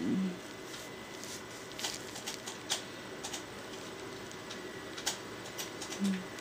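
Light, scattered clicks and taps of small nail-art tools being handled, about a dozen spread irregularly, over a steady faint hiss with a thin high whine. A short low note sounds at the start and again near the end.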